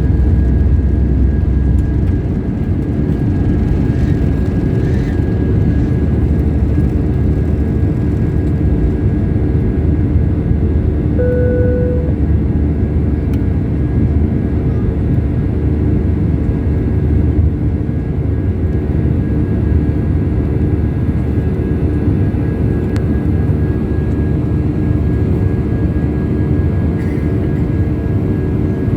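Steady engine and airflow roar inside the cabin of an Airbus A319 airliner in flight. A brief single tone sounds about eleven seconds in.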